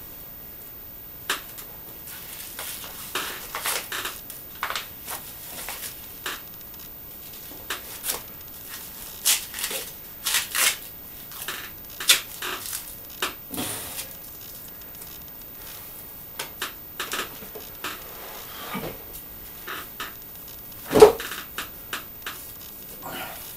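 Scattered metal clicks and knocks of gym equipment, a barbell and weight plates, with one loud clank near the end.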